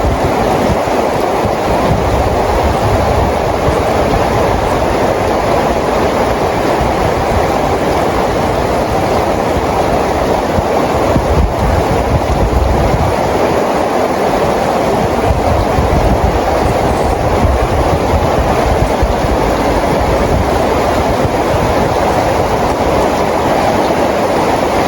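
Steady rain falling, a dense even hiss, with a low rumble underneath that swells and fades several times.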